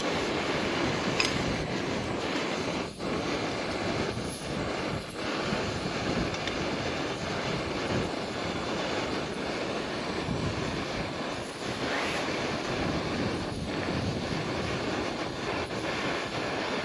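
Screw-on gas canister camping stove burning at full flame under a titanium mug of water: a steady rushing hiss that holds level throughout.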